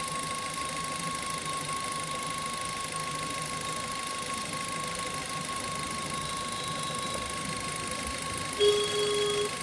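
Suzuki Ertiga petrol engine running with a steady high whine over a low hum, the noise that a mechanic traced to the bearings of the drive-belt tensioner. A short, louder tone is heard near the end.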